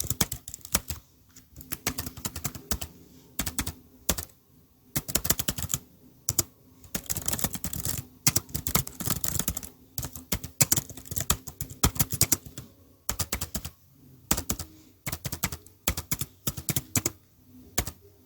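Computer keyboard being typed on: quick runs of key clicks in bursts of a second or two, broken by short pauses.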